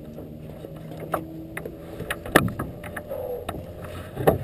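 Knocks and bumps on a plastic kayak's hull as a child climbs into the cockpit from a wooden dock, a few separate knocks with the loudest about halfway through.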